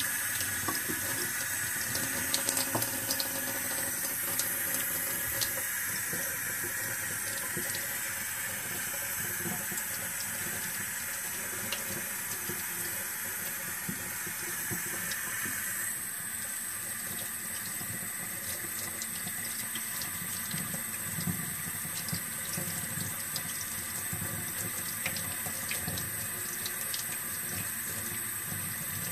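Kitchen faucet running a gentle stream into a stainless steel sink, splashing over hands and seedling roots as peat moss is rinsed off. The splash changes tone abruptly about halfway through.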